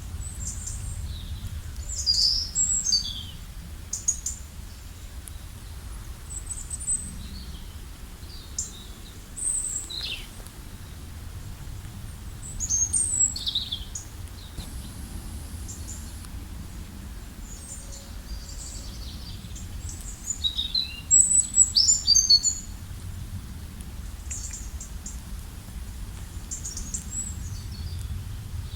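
Several songbirds singing and calling in short high chirps and trills, busiest about two seconds in, around thirteen seconds and around twenty-one seconds, over a steady low rumble.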